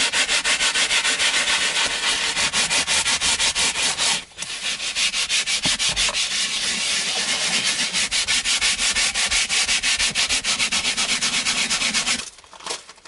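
Soft-bristled hand scrubbing brush worked quickly back and forth over a leather car seat wet with soapy cleaner, an even run of rasping strokes, several a second. There is a brief break about four seconds in, and the scrubbing stops near the end.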